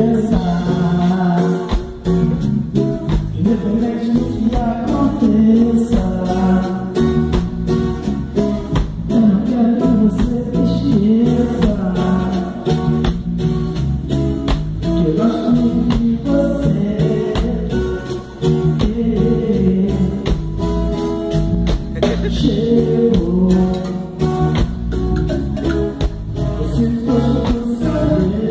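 Live samba band playing through a sound check: a singer over guitar and a steady percussion beat.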